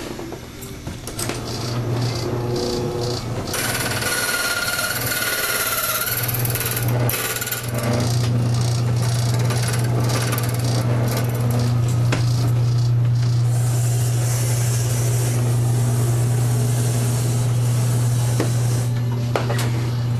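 Electric key-duplicating machine cutting a key: its motor hums steadily while the cutter grinds into the key blank, with a harsh, hissing cutting noise in two spells, about four to six seconds in and again from about thirteen to nineteen seconds in.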